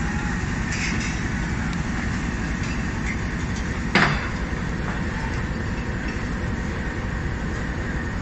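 Passenger train moving at low speed, a steady rumble of wheels on rails. One sharp knock about four seconds in.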